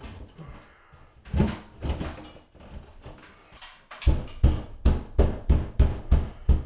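Sheet-metal housing of a Broan-NuTone bathroom exhaust fan scraping and knocking as it is pushed up into a tight-fitting drywall ceiling hole. A few scattered knocks give way, about four seconds in, to a quick run of about nine heavy thuds, about three a second, as it is worked into place.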